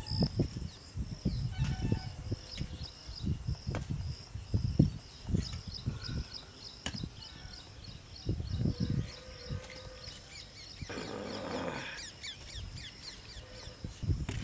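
Crickets chirping steadily, with a few bird calls, over dull knocks, a few sharp clicks and a short scrape about eleven seconds in, from handling a clay pot set in embers: its metal lid coming off and a wooden ladle stirring the horse gram boiled overnight.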